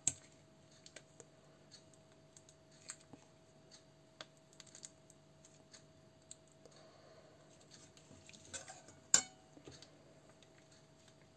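Faint clicks and scrapes of a metal spoon against a plastic tomato-paste sachet and an enamel bowl as the paste is spooned into liquid, with one sharp clink about nine seconds in.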